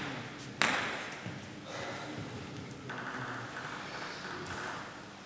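A table tennis ball gives one sharp click about half a second in, ringing on in the big hall. A couple of seconds of softer hissing hall noise follow.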